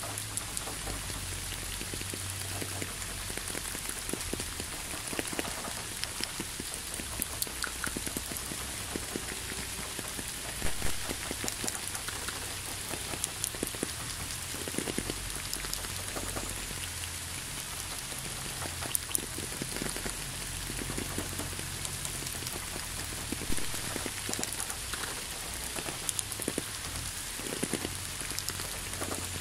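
Steady rain: a constant hiss with many single drops heard as distinct clicks, a few of them louder than the rest.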